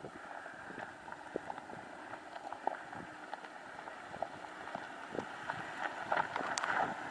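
Dodge Durango SUV creeping over a rough, rocky dirt road: irregular crunches and pops of gravel and stones under the tyres over a low engine hum, growing louder as it comes closer near the end.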